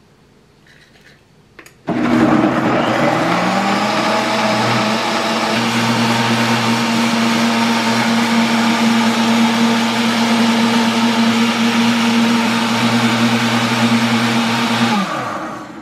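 Nutribullet countertop blender puréeing boiled red chiles with onion, garlic and water. The motor starts about two seconds in, quickly rises to a steady whir, runs for about thirteen seconds, then winds down and stops near the end.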